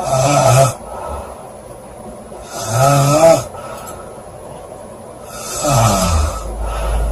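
A woman snoring loudly: three snores about three seconds apart, each under a second long with a buzzing pitch. A low rumble comes in near the end.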